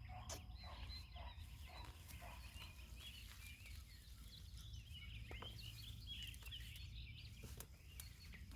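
Faint birds chirping and calling over a low steady rumble, with a few light clicks.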